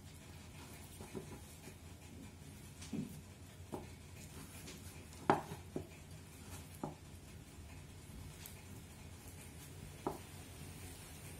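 Hands kneading a flour-and-water dough in a glass bowl: faint squishing with a few light knocks against the bowl, the loudest about five seconds in.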